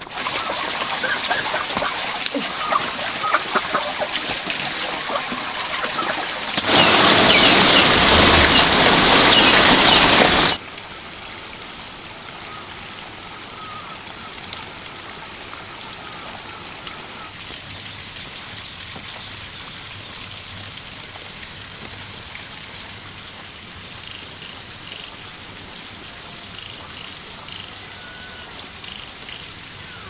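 Crackly rustling of dry straw nesting and eggs being handled as eggs are picked out of the nests by hand. It is loudest for about four seconds from about seven seconds in, then cuts off suddenly to a quieter steady rustle.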